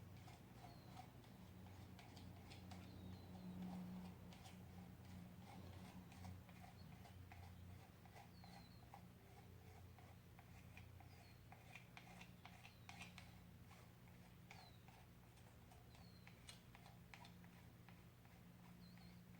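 Near silence: a faint steady low hum with scattered soft ticks and a few brief faint chirps.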